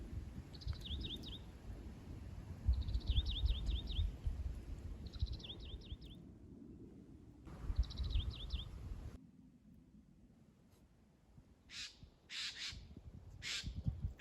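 A small songbird sings a short phrase of quick, falling notes four times, a couple of seconds apart, over a low rumble. About twelve seconds in come three or four harsh caws, typical of a crow.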